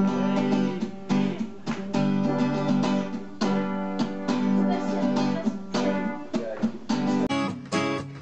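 Acoustic guitar strummed in chords with no singing, each strum ringing on. Shortly before the end it changes abruptly to a quicker passage of sharply picked notes.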